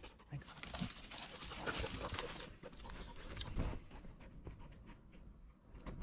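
A Labrador retriever panting close by after a retrieve, in soft irregular puffs, with a few light clicks of movement.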